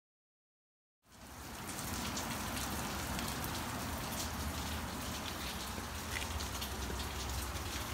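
Steady hiss of falling rain with a few faint clicks, starting about a second in after dead silence.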